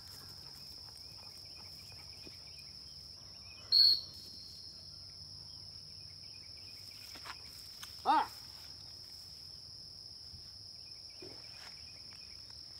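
A single short, loud blast on a dog-training whistle about four seconds in, the stop signal to a retriever running a blind retrieve. A short shouted command follows about four seconds later, over a steady high drone of insects.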